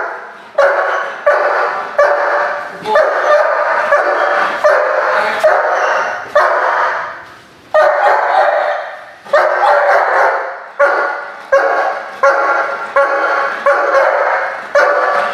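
German Shepherd protection dog barking repeatedly at a baiting decoy while holding its place beside its handler, about one bark every two-thirds of a second, with short pauses about seven and nine seconds in. The barks echo off the hard walls and tiled floor.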